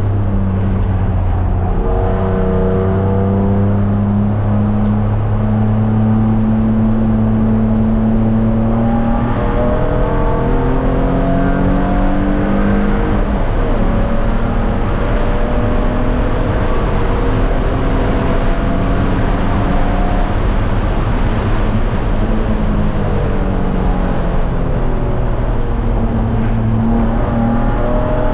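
Race car engine heard from inside the stripped cabin under hard driving. Its note holds steady at first, then repeatedly rises in pitch and drops back as the car pulls through the gears, over a bed of road and wind noise.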